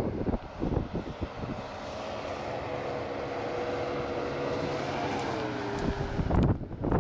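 Off-road 4x4's engine running under load as it ploughs through deep snow, holding a steady pitch and then dropping off about five seconds in. A few thumps near the start.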